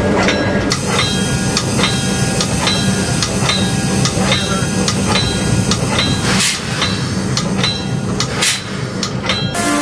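Locomotive bell on an MLW RS-3 diesel ringing over and over, each stroke leaving a ringing tone, over the steady running of the locomotive's diesel engine. The horn starts to sound just at the end.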